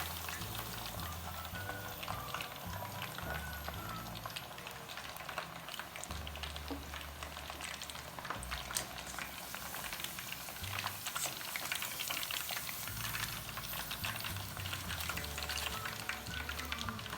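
Batter-coated food deep-frying in hot oil, a dense sizzling with many small crackles, over background music with a steady bass line.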